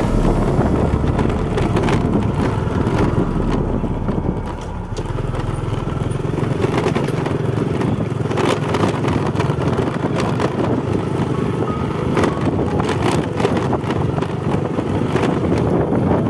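Motorcycle ridden over a rough gravel and stone road, its engine running steadily while the tyres and frame rattle over the stones. The sound eases briefly about four seconds in.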